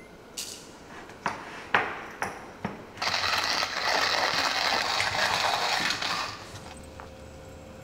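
Hand-cranked coffee grinder grinding beans, a dense crunching rattle lasting about three seconds. Before it come a few separate clicks and knocks as the grinder is handled.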